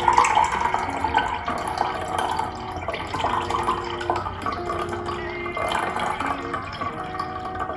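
Liquid being poured, a continuous splashing trickle, with soft background music under it.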